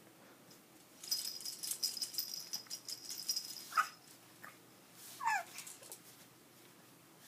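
A jingling rattle for about three seconds, then two short high squeaky cries; the second slides down in pitch.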